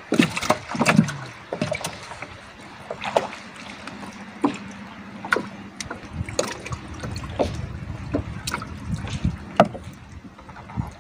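Irregular knocks and clicks from a small wooden boat as an angler shifts his weight and handles gear in it, about one a second, some sharp, over a low wash of water against the hull.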